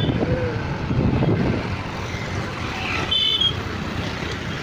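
Road traffic and vehicle engine noise, loudest in the first second and a half, with two short high beeps, one at the start and one about three seconds in.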